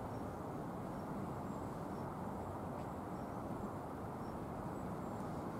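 Steady low hum of distant city traffic, even and unbroken.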